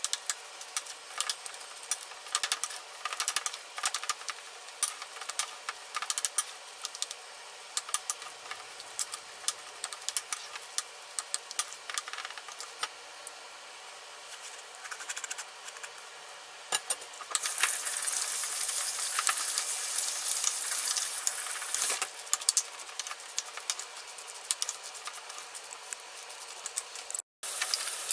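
Kitchen cooking sounds: utensils and cookware clicking and clattering, with a loud steady hiss for several seconds past the middle and again near the end.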